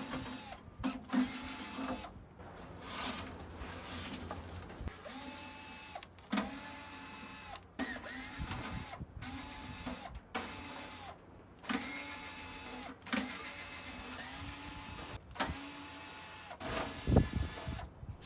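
Cordless power drill-driver running in short bursts of about a second, a dozen times over, each one spinning up, holding and winding down, with clicks and clatter between: screws being backed out of a monitor's casing to strip it for scrap.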